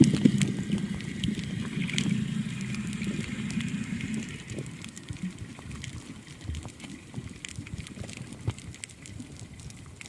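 Sea water sloshing and gurgling around the microphone, with a low rumbling wash that fades after about four seconds into a quieter stretch of scattered faint clicks.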